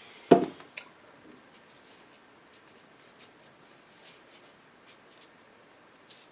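A sharp knock of a small object set down on a work table about a third of a second in, a lighter click just after, then faint scattered ticks and scratches of brush and paint being handled.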